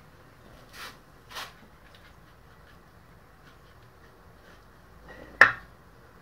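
Parts being handled on a partly dismantled VW engine: two faint clicks in the first second and a half, then a single sharp knock about five and a half seconds in.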